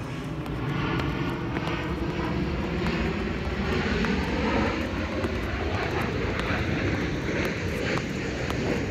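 A steady mechanical drone like an engine, with light scattered footfalls of step-ups on a concrete curb.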